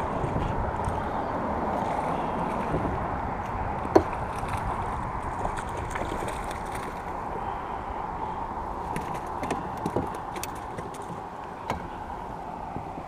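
Knocks and clatters of gear against a small fishing boat over a steady rushing background noise. The sharpest knock comes about four seconds in, and a few lighter ones fall near the end.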